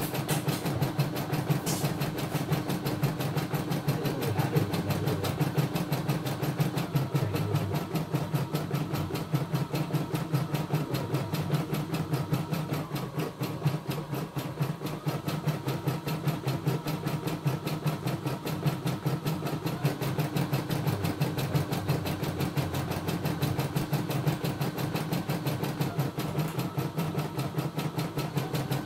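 CNY E960 computerized embroidery machine stitching a design, its needle going in a fast, even rhythm of strokes over the steady running of its motor.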